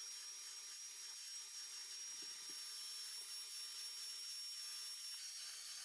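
Faint, steady high-pitched whine of a cordless handheld vacuum running, its pitch stepping down a little near the end.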